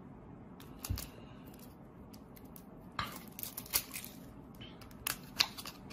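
Light crackles and taps from a boxed deck of playing cards being handled and turned over in the hands, in a few short clusters: about a second in, again around three to four seconds, and near the end.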